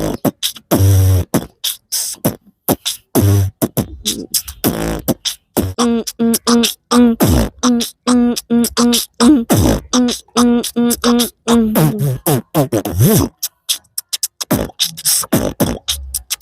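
A man beatboxing: rhythmic mouth percussion of sharp kick- and snare-like strokes, imitating a DJ remix. In the middle a pulsing hummed bass note is repeated in time with the beat, followed by a few sliding pitches and a short pause before the beat returns.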